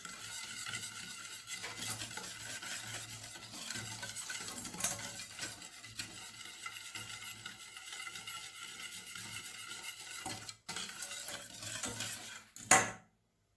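Wire whisk stirring a runny frosting mix of milk, sugar, cocoa and flour in a bowl, a continuous quick scratchy swishing as the powders dissolve. A louder knock near the end.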